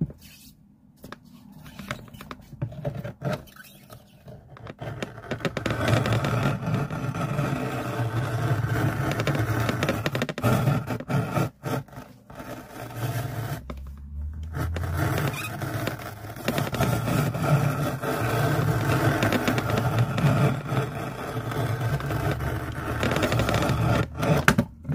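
Excess leather being cut away around the edge of a newly glued leather shoe sole: long rough scraping cuts through the thick leather. They start a few seconds in and break off briefly a couple of times around the middle.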